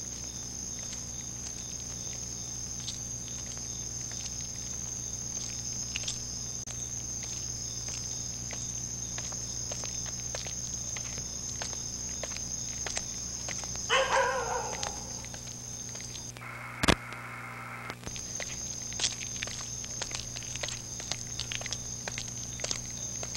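Night ambience: crickets chirping steadily over a low hum, with scattered light ticks like footsteps. About two-thirds of the way through there is a short wavering animal call. Shortly after, the crickets drop out for about two seconds and a single sharp click stands out.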